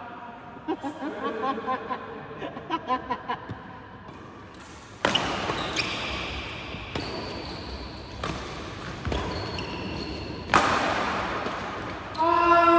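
Badminton rally in a large hall: quick squeaks of shoes on the court floor, then sharp racket strikes on the shuttlecock, the loudest about five seconds in and again about ten and a half seconds in. A player's voice rises in a held shout near the end.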